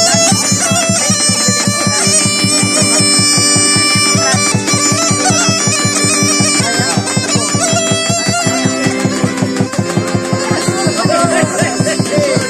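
Bulgarian gaida (bagpipe) playing a lively tune over its steady drone, with an accordion and a fast, steady low beat underneath.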